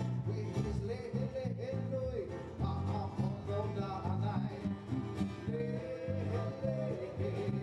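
A man singing while strumming chords on an acoustic guitar.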